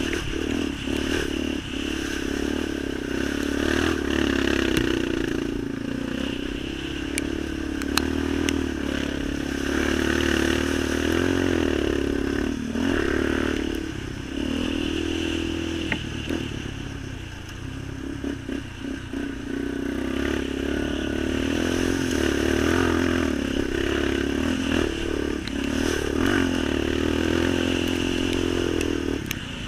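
Off-road vehicle engine running while riding, its pitch and level rising and falling with the throttle, with scattered sharp ticks and knocks over it.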